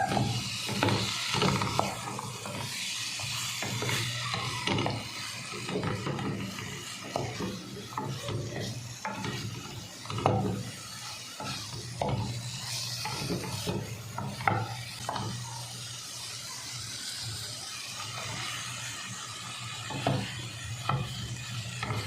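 Food frying in a pan while a utensil stirs it, scraping and knocking irregularly against the pan over a steady sizzle.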